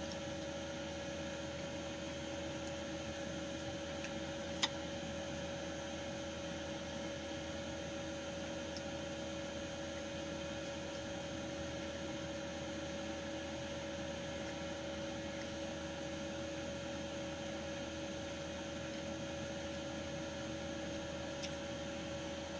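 A steady background hum with two constant tones, and one sharp click about four and a half seconds in.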